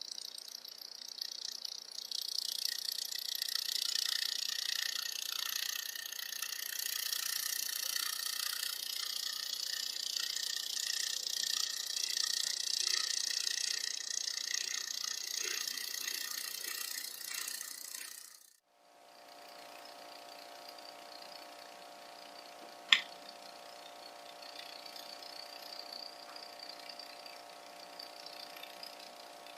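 Small geared mechanism whirring and rattling in a high, noisy pitch, cut off suddenly; then a quieter steady hum with a single sharp click.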